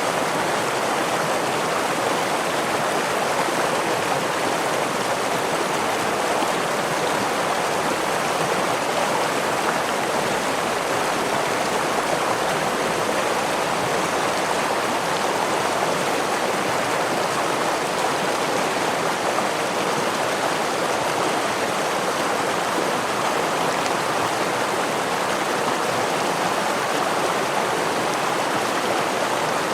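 Flowing water of a stream or small waterfall, a steady, unbroken rushing wash with no change in level.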